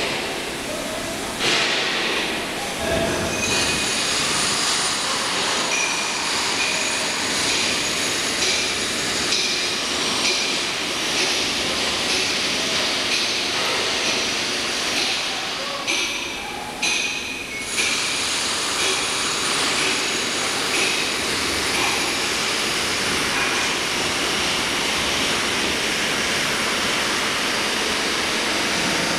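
Steady, loud industrial din: mechanical noise with thin, high metallic squealing tones that come and go, briefly dropping away twice about two-thirds of the way through.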